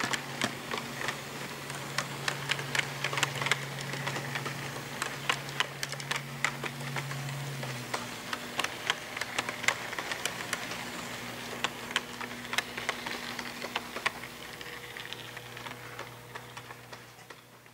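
HO scale model freight cars rolling along sectional track, their small wheels clicking irregularly over rail joints, over a steady low hum. The sound fades over the last second or two.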